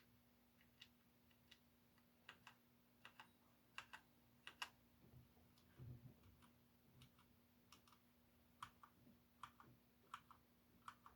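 Mechanical keyboard switches being pressed and released by hand: faint, irregular clicks, some in quick pairs, with a soft low thump about six seconds in.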